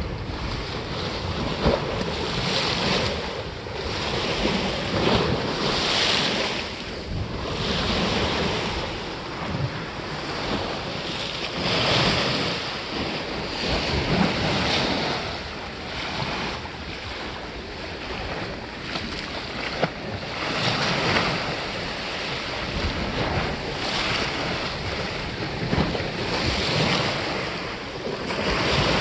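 Sea waves washing against the granite blocks of a breakwater, the surf swelling and fading every couple of seconds, with wind buffeting the microphone.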